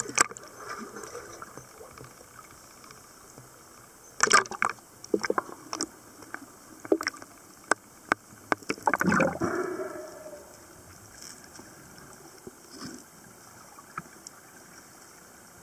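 Water splashing and gurgling as freedivers go under from the surface of a cave pool. A cluster of sharp splashes and knocks comes about four seconds in, and scattered splashes follow up to a bubbling gurgle near ten seconds. After that the sound is a quieter underwater hiss with occasional faint clicks.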